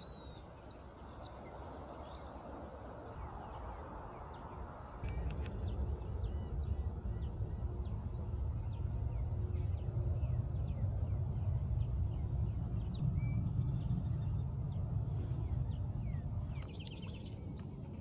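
Open-air ambience: a low rumble that grows much louder about five seconds in, with scattered short, faint bird chirps and a steady thin high whine. Everything changes abruptly near the end.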